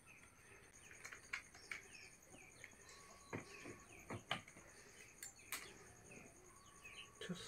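Sharp clicks and taps of metal and plastic parts as a brush cutter's handlebar is worked onto its shaft clamp by hand, with small birds chirping repeatedly and a steady high insect trill in the background.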